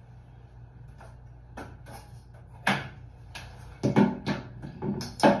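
A handful of separate knocks and clatters as bathroom items are handled and set down: a toilet paper roll put on its holder and a plastic cleaning bottle picked up. The loudest knocks come about halfway through and near the end.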